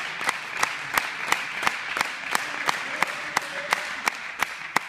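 Spectators clapping together in a steady rhythm, about three claps a second, over a background of general applause and crowd noise.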